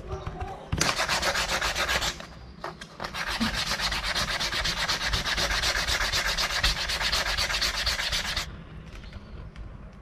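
Brisk back-and-forth rubbing on a black leather wallet in fast, even strokes. A short spell starts about a second in, and a longer one starts about three seconds in and stops suddenly about a second and a half before the end.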